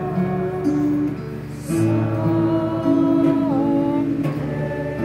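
Solo acoustic guitar played live: slow melodic playing with sustained notes and chords ringing out, the melody changing about once a second.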